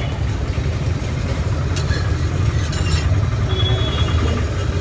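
Steady low rumble of idling road traffic, with brief scrapes of steel spatulas on a flat iron griddle about two and three seconds in.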